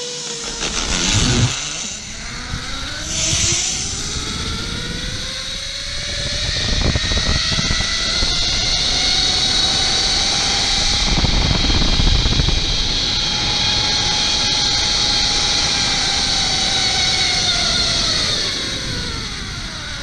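Zip-line trolley's pulley wheels running along the steel cable: a whine that rises in pitch as the rider picks up speed over the first few seconds, holds steady, then falls near the end as the trolley slows toward the platform. A low rush of wind is loudest midway through the ride.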